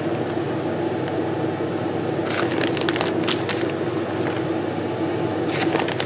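Grated cheese being sprinkled over macaroni and cheese sauce in a baking dish: a few light rustles and crackles over a steady low hum.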